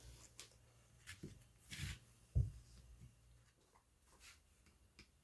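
Faint handling of small air-rifle parts and tools: a few light clicks and scrapes, a short rustle, and a soft thump about two and a half seconds in.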